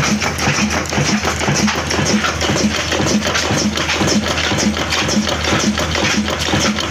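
Ittefaq Foundry 26 BHP cold-start diesel oil engine running at a steady speed: a regular knocking beat over a low hum, with a dense clatter of ticks.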